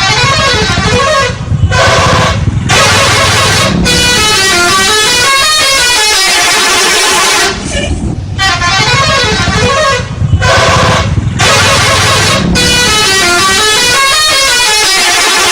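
Bus 'telolet' multi-tone air horn playing a tune of quickly stepping rising and falling notes, in repeated phrases broken by short pauses.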